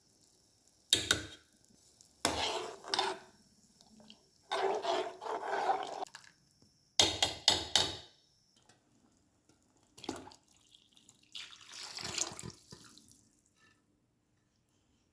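Kitchen sounds: water splashing or pouring in several short bursts, with sharp knocks of metal pots and utensils between them.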